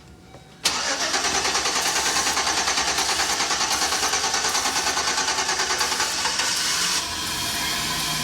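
Chevy Express van engine, running on brake cleaner sprayed into the intake in place of a failed fuel pump, starts up after a short quiet gap and runs with a regular pulsing beat. About seven seconds in the pulsing stops and a steadier, slightly quieter engine sound carries on.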